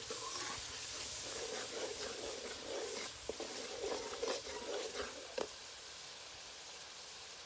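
Onion-tomato masala sizzling in hot oil in a steel wok while a steel ladle stirs it, with a few sharp knocks of the ladle against the pan. The sizzle eases off after about five and a half seconds.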